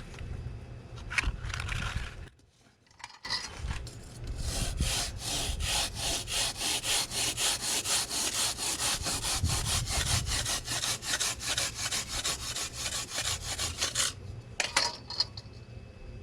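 A hand saw cutting through a soft insulating firebrick, with quick even back-and-forth strokes, about five a second, from about four seconds in until about fourteen. A few shorter scrapes come just before and just after the sawing.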